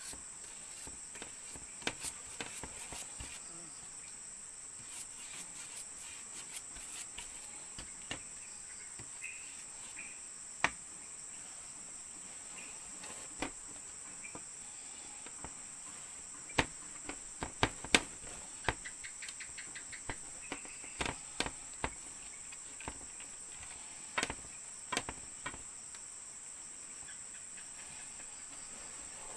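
Insects chirring in a steady high drone, with scattered sharp clicks and taps that come thickest and loudest around the middle.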